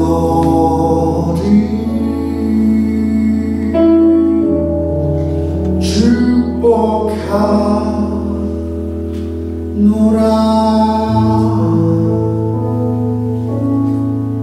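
A man singing into a microphone over instrumental accompaniment with long held low bass notes that change a few times.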